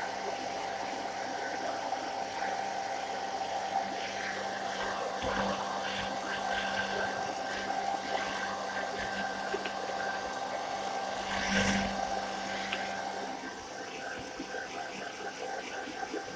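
Handheld hairdryer on a low setting running steadily, blowing air, briefly louder about twelve seconds in.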